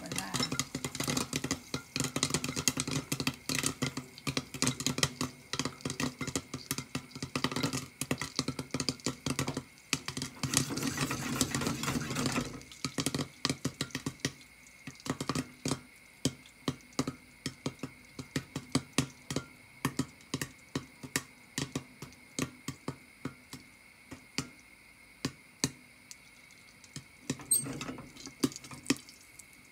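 Popcorn kernels popping in oil in a lidded stainless frying pan: a rapid crackle of pops at first, thinning after about twelve seconds to scattered single pops as the batch finishes. Near the end there is a short clatter as the lid is handled.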